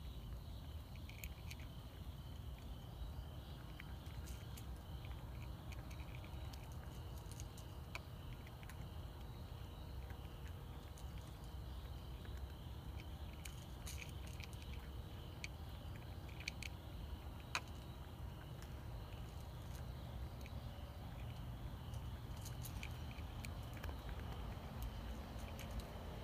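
Cat eating wet food from a bowl: scattered small, sharp chewing and licking clicks over a steady low background rumble.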